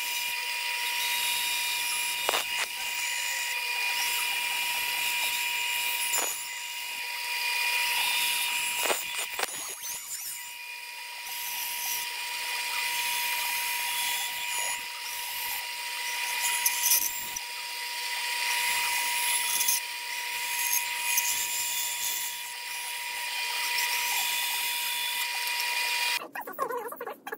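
Bandsaw running with a steady whine while a small wooden block is fed through the blade to cut out a fish-shaped lure blank. The cutting noise swells and eases as each cut is made. The saw's steady tone cuts off abruptly shortly before the end.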